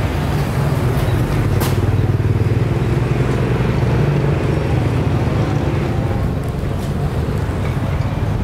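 Small motorcycle engines running close by, a steady low hum with street noise.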